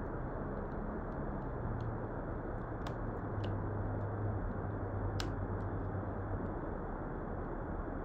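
Steady background hiss with a faint low hum through the middle and a few small, sharp clicks.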